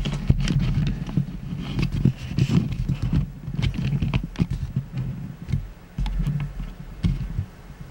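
A large cardboard shipping box being handled and shifted close to the microphone: irregular knocks, bumps and scraping.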